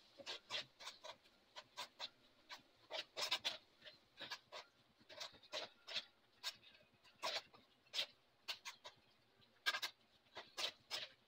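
Bare hand mixing raw squid pieces with egg and flour in a metal bowl: faint, irregular short wet squelches and clicks.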